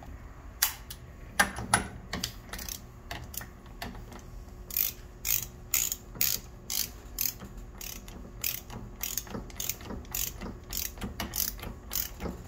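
Ratcheting torque wrench clicking as it tightens a hydraulic check valve into the pump body. A few scattered clicks come first, then a steady run of about two clicks a second as the wrench is worked back and forth toward its 200 inch-pound setting.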